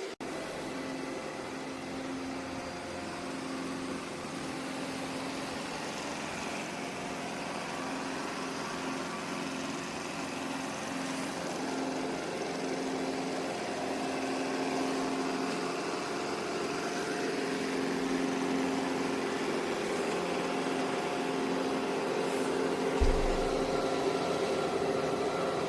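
Robot vacuum cleaner running: a steady motor hum with a wavering tone that grows slightly louder, and a single low thump about 23 seconds in.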